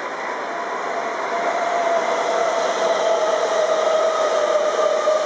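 Electric passenger train running along the platform: a steady rushing noise with a tone that slowly falls in pitch, growing louder.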